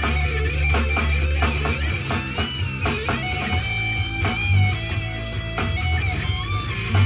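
Rock music: a lead electric guitar plays bent, wavering notes over bass and a drum kit keeping a steady beat.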